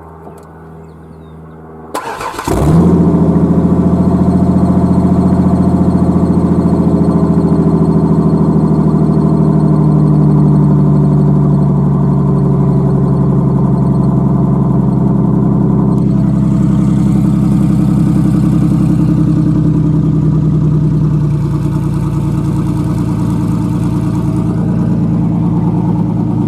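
A Ford Ranger V6 with open dual exhaust and no muffler or catalytic converter is started. It catches about two seconds in and settles into a loud, steady idle.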